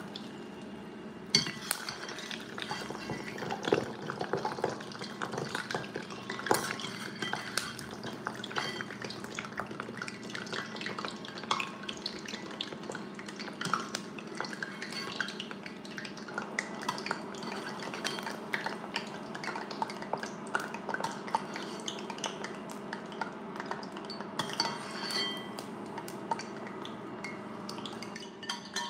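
Grapes deep-frying in hot peanut oil in a stainless steel saucepan, a dense crackling sizzle, with a metal spoon clinking and scraping against the pan and bowl. The sizzle grows louder about a second in.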